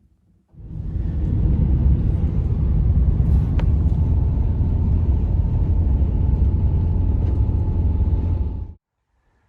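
Loud, steady low rumbling noise that starts about half a second in and cuts off suddenly near the end.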